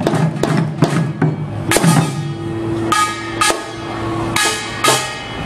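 Korean traditional folk music played live: drums struck in an uneven rhythm, the strokes thicker in the first couple of seconds and sparser after, over a steady held melodic tone.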